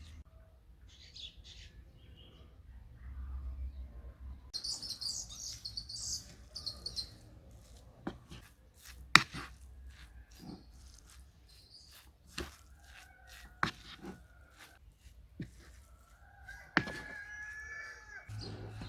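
A run of sharp, irregular knocks and clicks, typical of kitchen utensils striking a bowl or board during food preparation, the loudest about nine seconds in. Before the knocks come a few seconds of high chirping.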